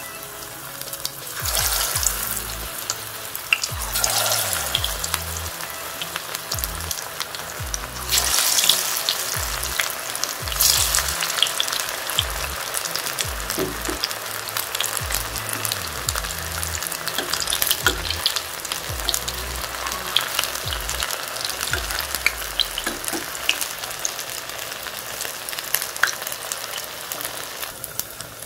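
Masala-battered baby corn deep-frying in hot oil: a steady crackling sizzle full of small pops, surging louder three times in the first eleven seconds.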